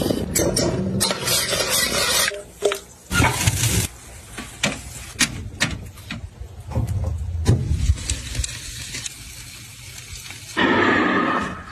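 Cooking sounds cut together: stirring and scraping in a sauce pot, sharp clicks of metal tongs on a grill grate, and sizzling of meat, with a louder burst of noise near the end.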